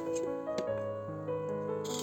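Background music of held piano-like notes, with a few light clicks, the last of them near the end.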